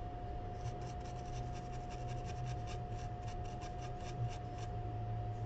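A small bristle brush scrubbing across a laptop logic board in quick scratchy strokes, about six a second, that stop shortly before the end.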